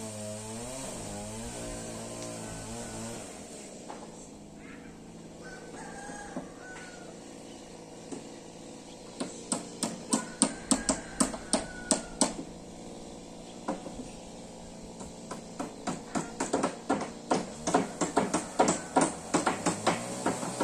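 A motor engine running with a wavering pitch for the first three seconds, then a rooster crowing a few times. From about nine seconds in, a fast run of sharp knocks, about four a second, pauses briefly and starts again near the end; the knocks are the loudest sound.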